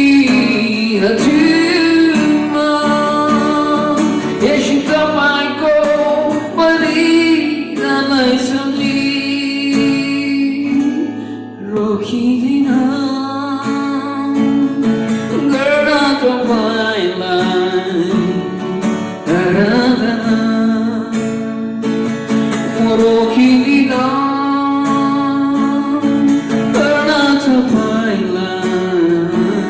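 Worship song: a voice singing a melody over acoustic guitar accompaniment.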